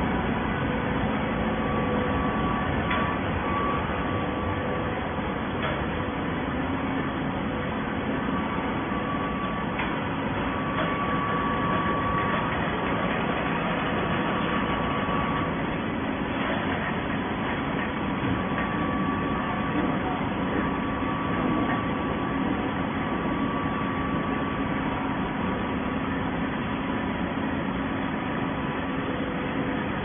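Automatic-tie horizontal baler running: a steady machinery drone with a faint whine that comes and goes.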